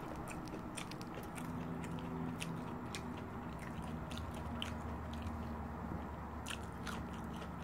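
Close-up chewing of a crispy fried breaded fish nugget, with many small, sharp crunches.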